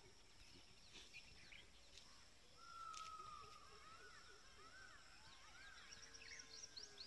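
Faint bird calls: short chirps and whistled notes that rise and fall, busier from a few seconds in, over a faint steady hiss.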